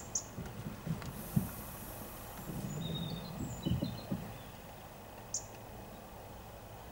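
Outdoor background noise with a few short, high bird chirps and a scatter of low thuds.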